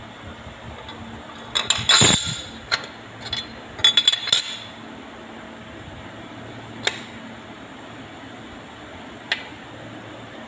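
Metal transmission parts clinking and knocking as they are handled and seated in an automatic transmission's aluminium case: two bursts of rapid clinks in the first half, then two single sharp clicks.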